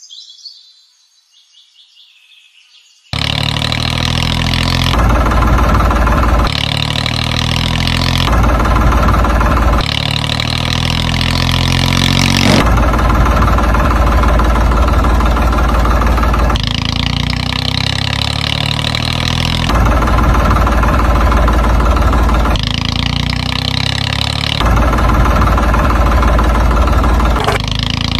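Tractor engine sound effect, running and revving, cutting in suddenly about three seconds in after a faint start. It switches abruptly between idling and revving every second or two, like spliced clips.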